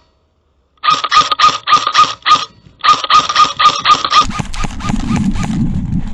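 Rapid airsoft gun shots in quick strings of about four a second, each a sharp crack with a ringing tone. They are followed about four seconds in by a steady rough rustling noise.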